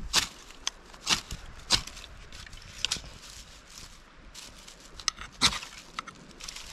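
Dry sticks clicking and snapping as they are handled and stacked into a small pile for a fire. The sharp cracks come at irregular intervals, the loudest about five and a half seconds in.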